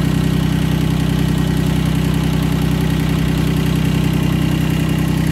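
Tractor diesel engine idling steadily, close by.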